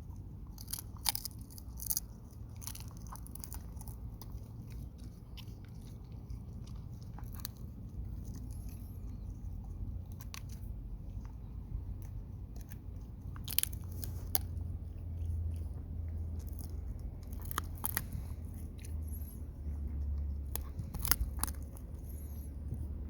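A Labrador chewing on a wooden tree branch: irregular crunches and sharp cracks of wood splintering between its teeth, a few louder snaps scattered through, over a low steady rumble.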